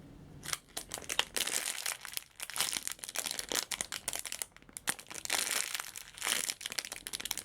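Plastic packaging crinkling in irregular crackles as a squishy toy is handled and turned.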